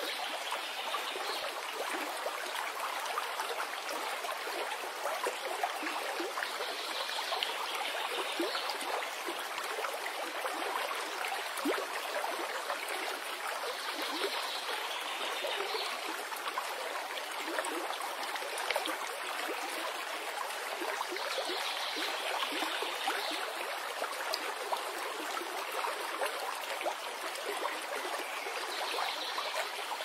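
Stream flowing over rocks: a steady rush and trickle of water, with a faint higher sound coming back about every seven seconds.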